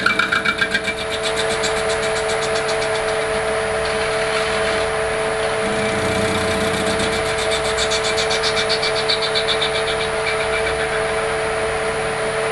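Metal lathe running with a steady motor whine while its tool faces off the end of a square brass bar. The cut on the square stock is an interrupted cut, giving a fast, even high chatter that comes in two spells of a few seconds each.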